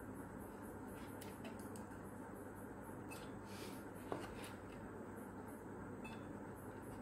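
A cloth rubbing the plastic blades of a small rechargeable fan, faint rustling with small plastic knocks and one sharper click about four seconds in, over a steady low hum.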